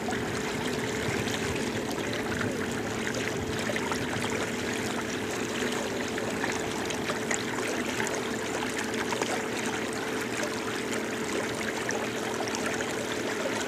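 Water lapping and trickling against a small boat, a steady splashing wash with small ticks throughout, over a faint steady hum.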